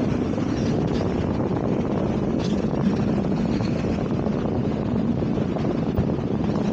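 Hong Kong double-decker electric tram running along its tracks: a steady low rumble, with wind on the microphone.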